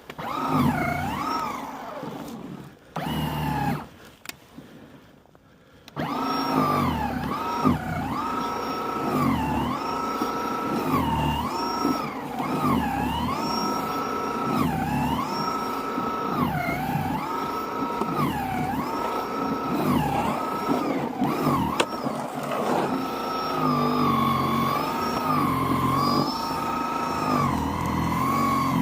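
Battery-powered Snow Joe snow blower running, its electric motor whine dipping in pitch and recovering over and over as it works through the snow. In the first few seconds it runs in short spurts with pauses, then keeps running.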